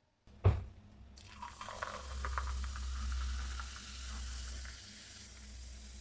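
A sharp knock, then food sizzling in a hot frying pan, a steady hiss with small crackles starting about a second in.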